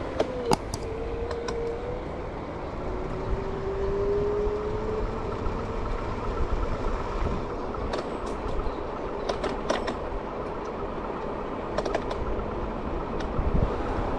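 Riding noise of a Marti rental electric scooter: a steady rumble of small wheels over the paved cycle path, with a faint whine that rises in pitch over the first few seconds. Sharp rattling clicks come now and then, mostly in the second half.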